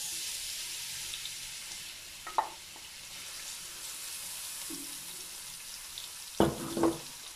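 Chopped onions sizzling in hot oil in a stainless steel pot, a steady frying hiss that starts sharply as they go in and eases slightly, while a wooden spoon stirs them.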